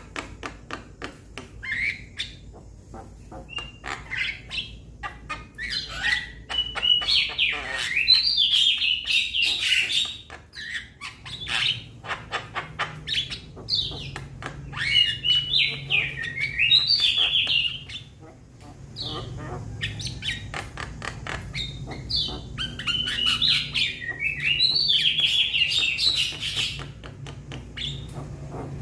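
Young Javan myna calling: a run of rapid harsh clicks, broken by three louder bursts of chattering, squeaky and whistled notes.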